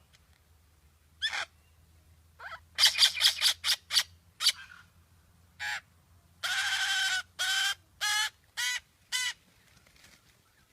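A bird calling in harsh squawks: a single call about a second in, then a quick run of rasping notes, and later one longer drawn-out call followed by four shorter ones.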